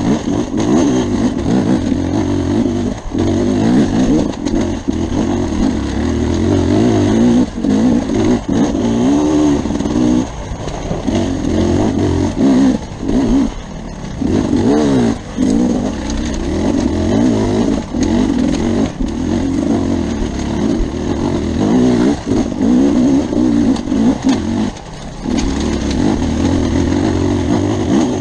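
Beta RR enduro motorcycle engine being ridden hard off-road, revving up and down with constant throttle changes and brief dips whenever the throttle is closed.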